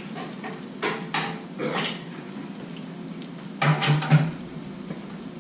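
Kitchen clean-up clatter: a few separate knocks and clinks of dishes and utensils being handled and set down, with a louder cluster about four seconds in.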